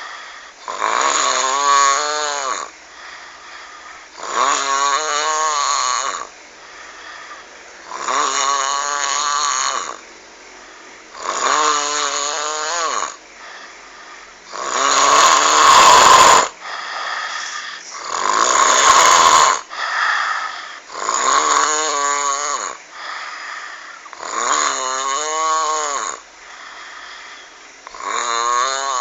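A person snoring in a steady rhythm, about one snore every three and a half seconds. Each snore is a croaking, frog-like drone that rises and then falls in pitch. Two snores midway are louder and harsher than the rest.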